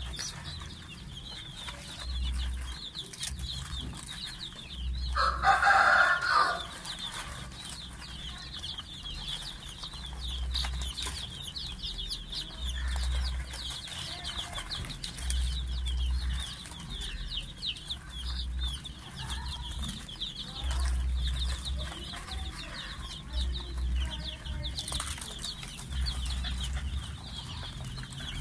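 A brooder full of young chicks peeping continuously, with many high, short chirps overlapping. About five seconds in, a louder, lower call cuts in for a second or so.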